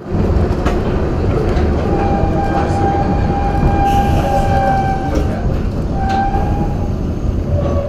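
Perley Thomas streetcar running along its rails: a steady rumble with occasional sharp clicks. A held high tone with overtones rings for about three seconds, then again briefly.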